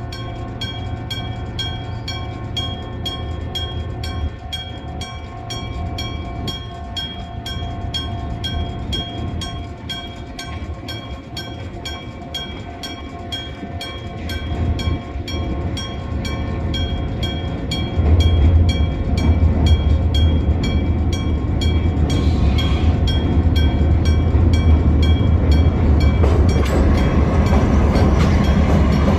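Electric-bell (dendō-shō) railway crossing bell ringing with rapid, evenly spaced strokes and a ringing tone. About 14 seconds in a train's rumble builds, and from about 18 seconds a diesel freight train passes loudly through the crossing while the bell keeps ringing.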